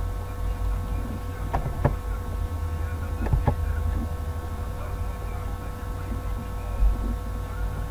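Steady electrical mains hum with a buzz picked up on the recording. A few short clicks come about two seconds and three and a half seconds in.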